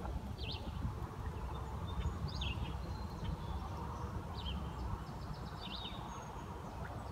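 A small bird giving short, high chirping calls about every second or so, over a steady low rumble.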